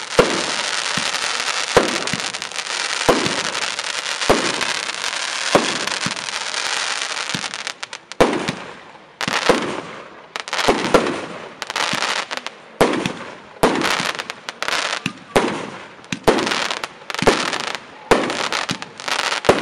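Startrade Showbox L5 firework compound firing. For about eight seconds there is a dense, continuous crackling with a sharp bang roughly every second. After that it becomes a quicker run of separate bursts, one or two a second, each followed by a short crackle.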